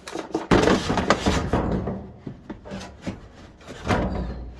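Handling noises of a toolbox being shoved and wedged into place to prop up a part inside a dryer. A run of knocks and scraping fills the first couple of seconds, followed by scattered clicks and another cluster of knocks near the end.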